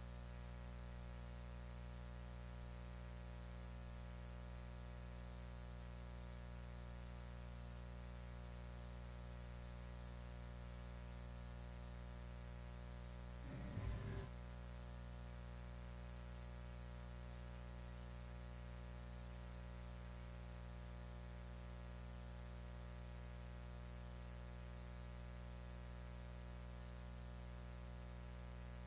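Steady electrical mains hum with a faint hiss, with a short faint sound about halfway through.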